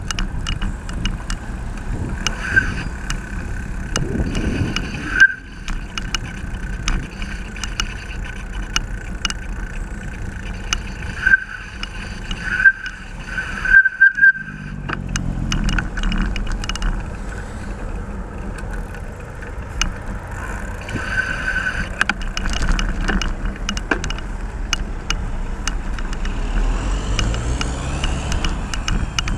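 Road traffic on a busy street heard from a moving bicycle: a steady rumble of cars with engines passing and pulling away, mixed with wind and tyre noise. A few short high squeaks and sharp clicks come in around the middle.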